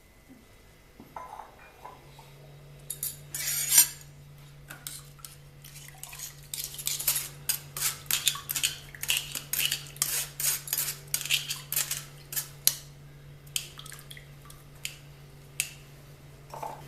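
Metal kitchen utensils clinking and scraping: a spoon working ground ginger pulp in a steel sieve over a pot, as the ginger water is strained. There is one loud clatter about four seconds in, then a quick run of clinks that thins out near the end, over a steady low hum.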